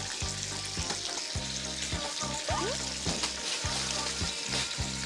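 Hanwoo beef sizzling on a grill pan over a portable gas burner, a steady crackling hiss. Soft background music with a low pulsing bass runs underneath.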